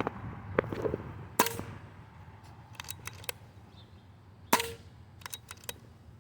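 Two shots from a JTS Airacuda .22 pre-charged pneumatic air rifle, each a sharp crack with a brief ring, about three seconds apart, with lighter clicks in between.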